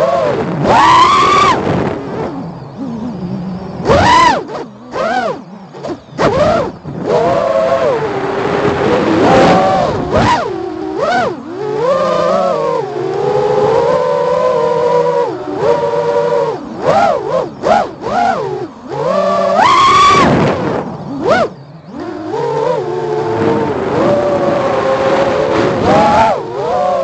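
FPV quadcopter's motors and propellers whining, the pitch sweeping up and down with every throttle change, with several sudden loud throttle surges.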